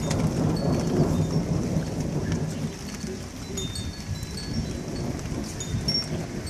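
Rolling thunder rumbling on and on, strongest in the first few seconds and then easing a little. Scattered short, high chiming notes sound above it.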